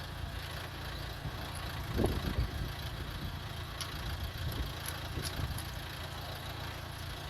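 Nissan Qashqai engine idling steadily, with a dull knock about two seconds in and a few light metallic clicks.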